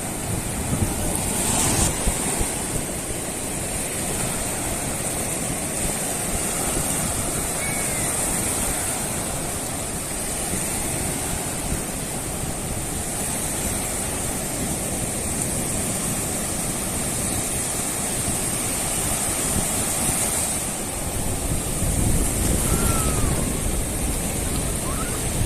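Mediterranean Sea waves washing steadily onto the shore, swelling louder near the end.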